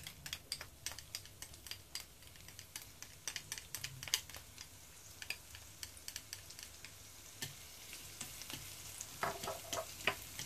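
Minced garlic frying in hot oil in a stainless steel pan: a sizzle full of small sharp pops and crackles, the hiss growing fuller over the last few seconds. Near the end, chopsticks stir the garlic.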